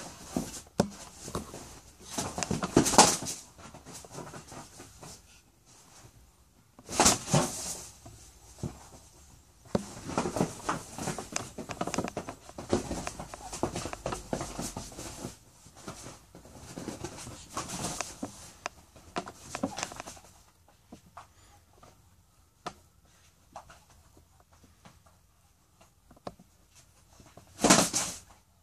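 A dog and a rooster scuffling: repeated short bursts of scrabbling and flapping noise. There is a busy stretch through the middle, a quieter spell after it, and a last sharp burst near the end.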